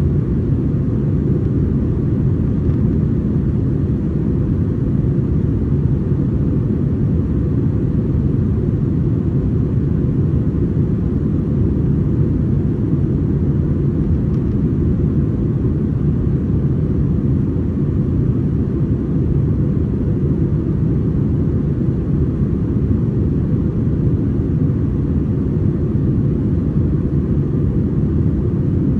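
Airbus A321-231 in flight, heard inside the cabin: a steady deep rumble of its IAE V2500 turbofan engines and the rushing air, with almost nothing in the higher range.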